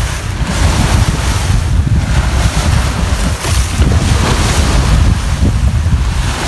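Strong wind buffeting the microphone, with a heavy, uneven low rumble, over the rush of choppy sea and spray along the hull of a small wooden sailing fishing boat.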